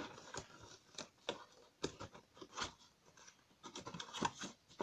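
Irregular light scrapes and clicks of cardboard packaging being handled as a tablet box and its insert are pushed about, with something that won't fit being forced into the box.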